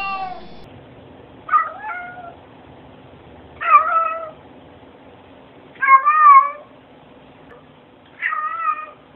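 A domestic cat meowing repeatedly: short calls that bend in pitch, one at the very start and then one about every two seconds.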